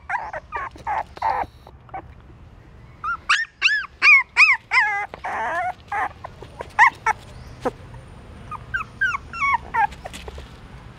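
Several young puppies whimpering and yelping in short, high cries that rise and fall in pitch. The cries come in clusters with brief pauses between them.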